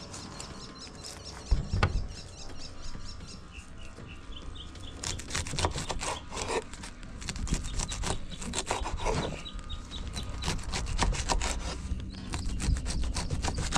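A knife scraping and cutting in quick, uneven strokes, which come thicker from about five seconds in. Faint bird chirps sound during the first few seconds.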